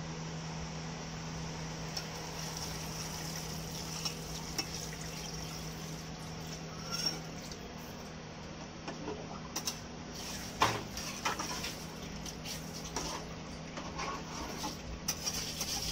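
Metal spatula knocking and scraping against an aluminium cooking pot as rice, soya chunks and water are stirred, the clinks falling mostly in the second half and the sharpest about ten and a half seconds in. A steady low hum runs underneath.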